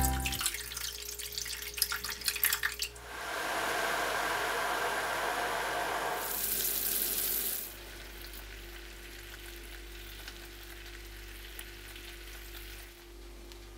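Hot water poured onto sugar in a stainless steel saucepan, then the sugar syrup boiling and bubbling as it cooks toward caramel. A steady hiss drops to a quieter simmer about eight seconds in, as the heat is turned low.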